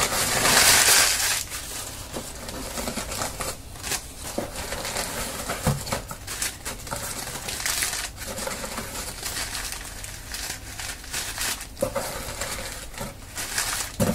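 Crumpled newspaper packing rustling and crinkling as hands rummage through it in a cardboard box, loudest in the first second and a half.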